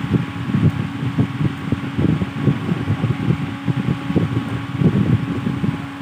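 Fan running with a steady hum, its airflow buffeting the microphone in uneven low rumbles that settle at the very end.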